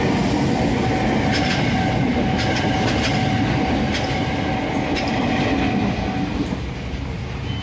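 KRL Commuter Line electric train passing close by: a dense rumble of the cars with a steady whine under it and sharp clacks of the wheels over the rail joints about once a second. The sound drops off about six seconds in as the last car goes by.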